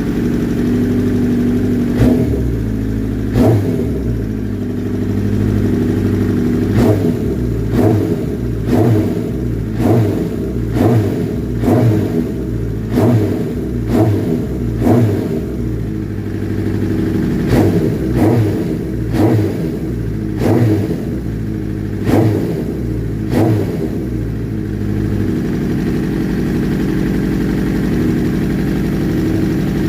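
Suzuki GSX750ES inline-four motorcycle engine running, blipped on the throttle about once a second in short revs, then settling to a steady idle for the last few seconds.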